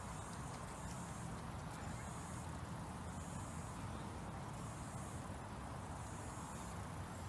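Outdoor ambience: a high insect chorus that swells and fades about every second and a half, over a low steady rumble.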